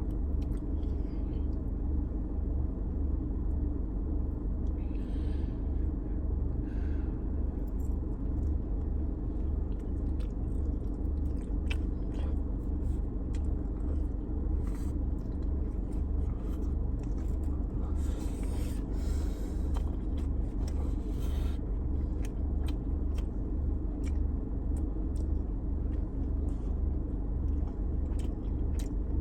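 A steady low rumble throughout, with faint, scattered crackles and chewing sounds of someone eating over it.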